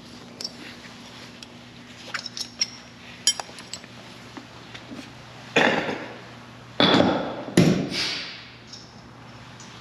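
Hand tools clinking and tapping against metal car parts, a few light clicks, then three loud metallic clanks about a second apart, each trailing off. A steady low electrical hum runs underneath.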